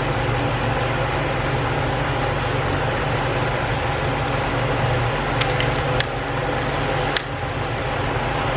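A steady mechanical hum with hiss, like a room fan or air-conditioning unit, with a few light sharp clicks about five to seven seconds in.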